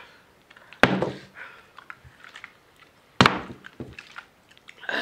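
A bottle flipped and landing on a cloth-covered table, two sharp thuds about two and a half seconds apart.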